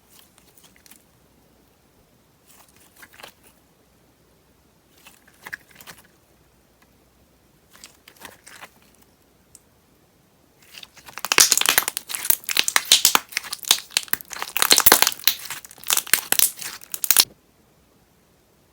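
Thick wood clay slime being handled: a few faint squishes, then from about eleven to seventeen seconds in a loud run of dense crackling, the heavy bubble pops of the slime being stretched and pressed.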